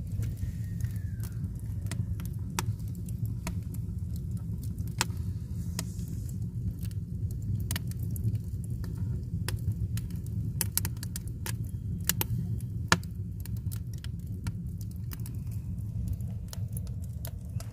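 Firewood burning in an agungi firebox, crackling with many sharp, irregular pops over a steady low rumble.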